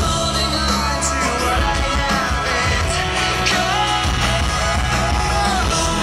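Loud rock-style music with singing, playing steadily over a strong low beat.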